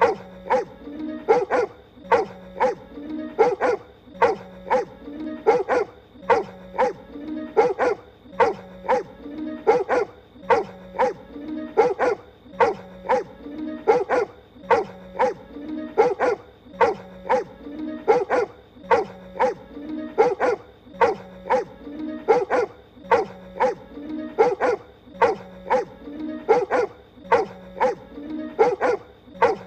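Cartoon pony voiced barking like a dog, a quick run of sharp barks, looped so the same bit repeats about every two seconds over background music.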